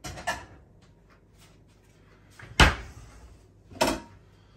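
A plate being fetched from a kitchen cupboard: a cupboard door opening and shutting and crockery knocking, heard as three short sharp knocks, the loudest about two and a half seconds in.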